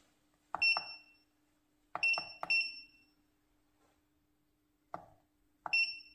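Button presses on the control panel of an 8586D hot-air rework station, each click answered by a short, high electronic beep as the hot-air gun is switched on and its temperature set. There are four beeps, two of them close together about two seconds in, and one click near five seconds gets no beep; a faint steady hum runs underneath.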